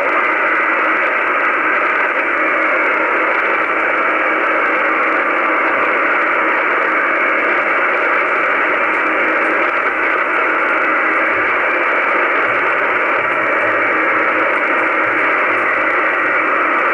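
Shortwave radio receiver giving out a steady, even hiss with no voice in it, narrow and muffled in tone.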